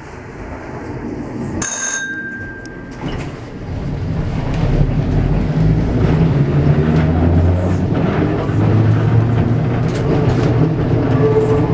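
Two-axle 1950s streetcar heard from inside the driver's cab: a bell rings once, short and bright, about two seconds in. Then the motors and the wheels on the rails grow louder and settle into a steady low hum as the tram runs along.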